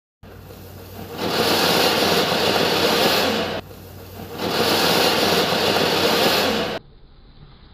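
Anar (flower-pot fountain firecracker) spraying sparks with a loud, steady rushing hiss that swells about a second in, dips briefly midway, surges again and cuts off abruptly near the end.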